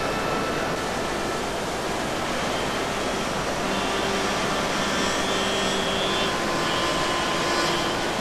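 Steady rush of river water flowing over a concrete step, with faint held tones coming and going over it.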